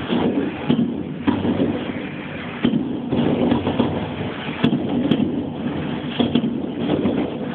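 Dense barrage of aerial fireworks: a continuous rumble of many explosions, with sharper bangs at irregular intervals.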